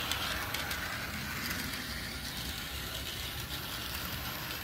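Bachmann Spectrum HO scale doodlebug motor car running along the track: a steady mechanical whir from its small electric motor and gears, with faint clicking from the wheels on the rails. It runs smooth and not too loud.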